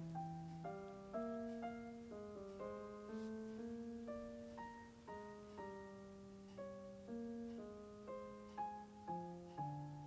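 Soft background piano music: a gentle melody of single notes, each struck and fading, over a slower lower line.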